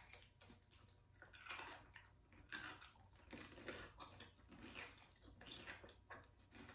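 Faint close-up chewing: soft, wet mouth sounds of someone eating, coming irregularly about one or two a second.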